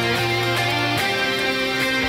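Melodic metal song playing: an electric guitar melody rings out over sustained held notes, without drums.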